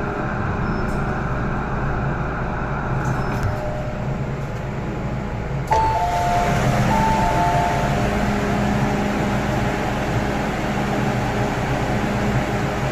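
MTR M-train electric multiple unit humming steadily at a station platform. About six seconds in, its two-tone electronic door chime sounds, a high note then a lower one, played twice.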